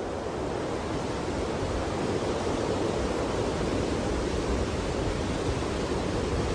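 A steady, even rushing noise with no tone, beat or voice, like surf or rushing water, holding at one level throughout.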